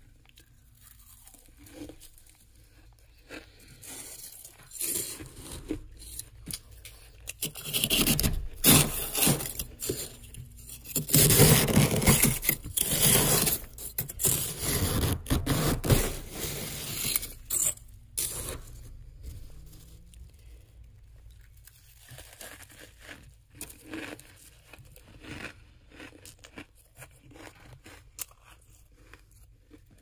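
Fingers digging into packed humidifier-grown freezer frost, scraping and crunching as chunks break loose. The crunching is loudest and densest through the middle, with fainter scattered crackles before and after.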